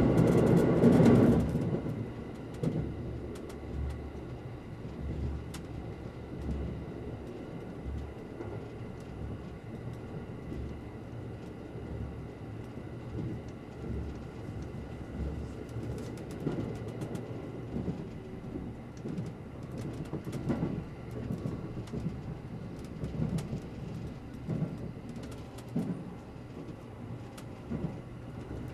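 Electric limited express train running, heard from inside the passenger car: a steady rumble of wheels on rail with a few faint whining tones. It is louder for about the first second and a half, then settles lower, with scattered light knocks.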